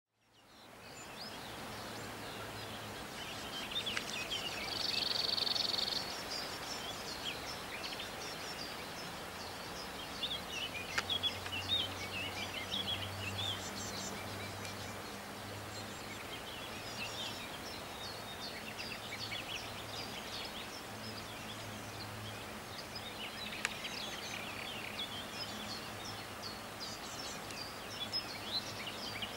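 Birds chirping and singing on and off over a steady outdoor background noise, with a brief louder high trill a few seconds in and a faint low hum through the middle.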